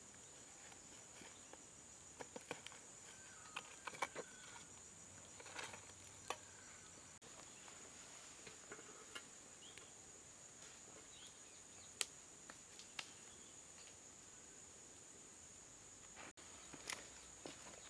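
Faint outdoor ambience: a steady high insect drone, with scattered sharp clicks and ticks, the two loudest about four seconds in and near the middle.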